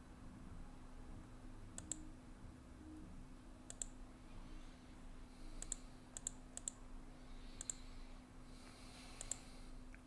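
Computer mouse clicking about seven times at irregular intervals, each a quick double tick of button press and release, over a faint steady low hum.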